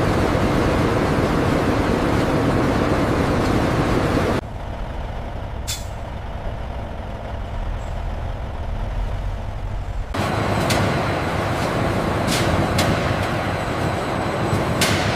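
Loud, steady mechanical noise that cuts abruptly to a quieter low rumble about four seconds in, then jumps back up about ten seconds in with several sharp clicks and knocks.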